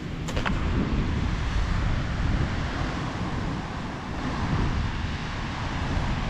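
Wind noise on the microphone over the steady wash of ocean surf. About half a second in come two light clicks as litter drops into a plastic bucket.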